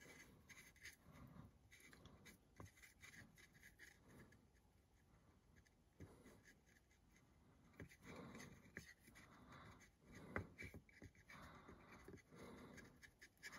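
Faint, intermittent scratchy strokes of a small flat paintbrush spreading PVA glue over a wooden panel, the glue soaking into the wood.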